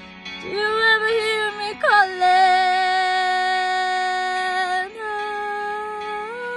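A young woman singing long wordless held notes: a sharp slide down about two seconds in into a long steady tone, then a new note that rises near the end.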